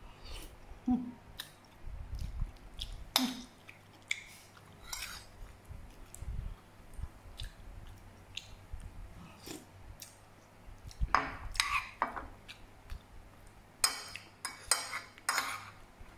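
A person chewing and eating spoonfuls of soft cooked greens close to the microphone, with scattered clicks of a metal spoon, several coming in quick succession towards the end.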